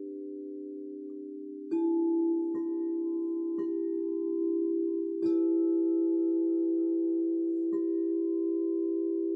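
Singing bowls ringing with a steady low hum, struck five times so that fresh bell-like tones ring out over the sustained drone.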